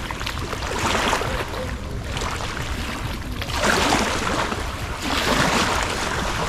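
Big river waves on the Ganges washing up against the bank, surging in three times, over a steady low rumble of strong wind.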